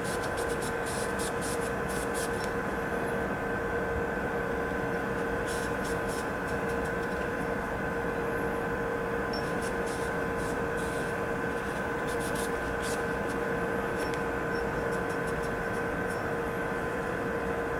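Steady electrical hum with a few fixed tones, and now and then short spells of faint scratchy rubbing as a cloth wipes the steel slide of a Glock 43 pistol.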